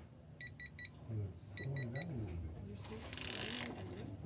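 Digital torque adapter beeping in quick groups of three short, high beeps, repeating about once a second, as the transmission pan bolts are torqued to 12 pounds. A short burst of hiss comes a little after the middle.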